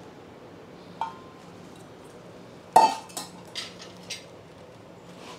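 Metal kitchen utensils clinking: a light clink about a second in, then a sharp clank that rings briefly, followed by three smaller clinks, as a steel bowl and ladle are handled against a metal cooking pot. A faint steady hum runs underneath.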